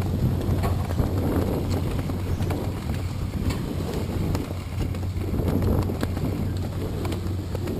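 Wind buffeting the camera microphone, over a steady low hum, with scattered light knocks and clicks throughout.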